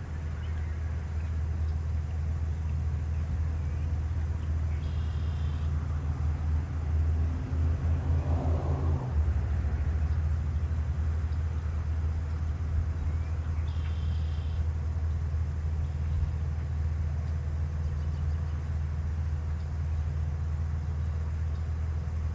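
A heavy truck engine running steadily, a deep even rumble, with a pulsing throb for a couple of seconds near the middle.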